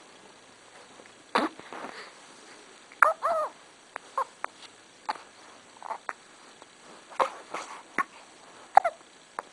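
A person hiccuping repeatedly: short, sudden gulps about once a second, one of them with a brief voiced squeak.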